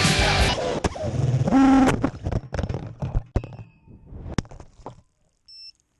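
Rock soundtrack breaking off into a held low note and a scatter of fading final hits, then dropping out; a short high electronic beep sounds near the end.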